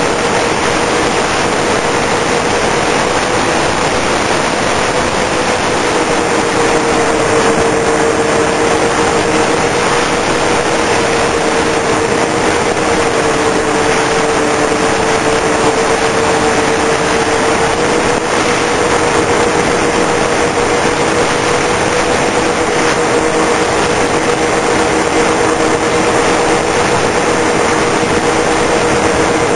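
Twin brushless electric motors and propellers of a Multiplex TwinStar II RC plane running steadily in flight, a steady whine in two pitches, heard from a camera on board under heavy wind rush over the microphone.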